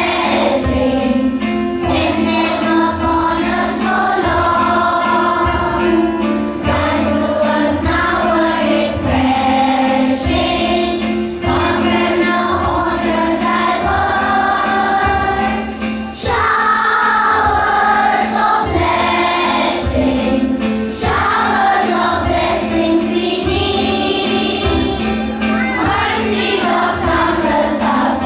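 A group of voices singing a morning prayer song in unison, over a steady low drone and a regular beat.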